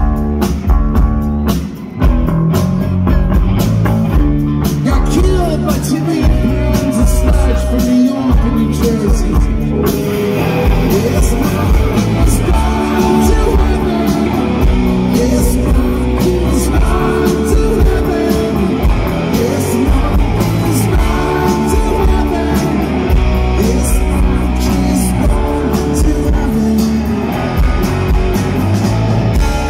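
Live rock band playing electric guitar, bass guitar and drums, with a male lead vocal. The sound fills out in the upper range about ten seconds in.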